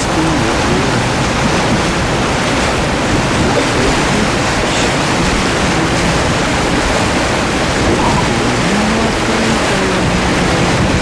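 Motor launch running at cruising speed: a loud, steady rush of water and wind along the hull, with the drone of its engines underneath.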